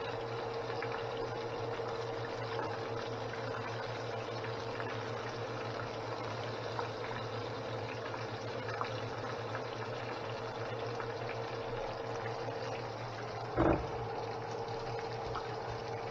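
Chicken back pieces deep-frying in hot oil in a stainless steel pan: a steady sizzle with fine crackling, over a faint steady hum. Near the end, one sharp knock.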